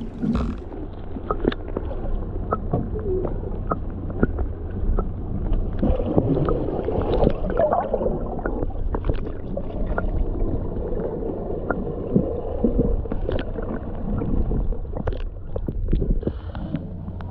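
Muffled water sloshing and gurgling, with bubbles and many small clicks and knocks, heard through a microphone dipped at and under the harbour water's surface.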